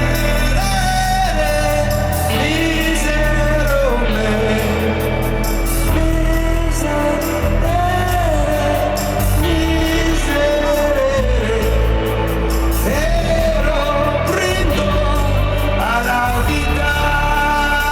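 Live rock band playing loudly: a male lead vocal sings long, gliding notes over electric bass, guitar and a steady drum beat.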